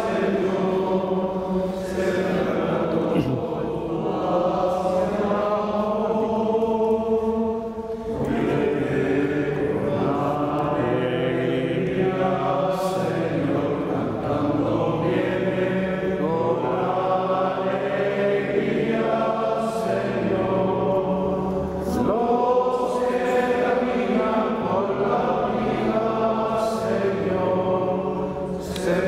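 A group of voices singing a slow hymn, phrases of held notes with short breaks between them: the entrance chant opening the Mass.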